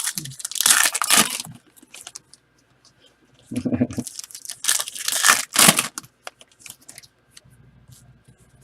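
Wrapping on football card packs being torn open and crinkled, in three bursts with light clicks of handling between and after.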